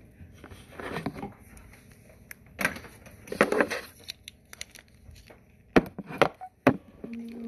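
Rustling and crinkling handling noise with a scatter of sharp knocks and clicks, the loudest about six seconds in, as people shuffle in close to the microphone and phone.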